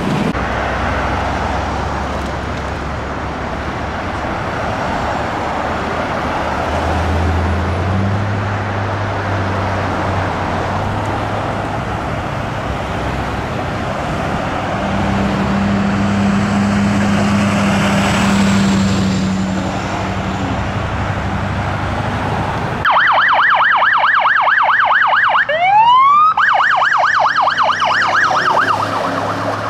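Diesel fire apparatus engines running and vehicles passing on the road. Near the end, a sheriff's patrol SUV siren starts a fast yelp, with one long rising sweep in the middle of it.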